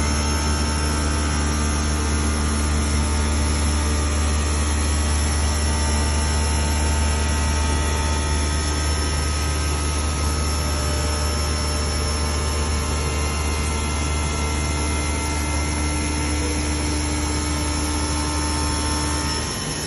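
CMS CNC glass work centre running with coolant water spraying: a steady low hum with a hiss over it. The hum cuts off abruptly near the end.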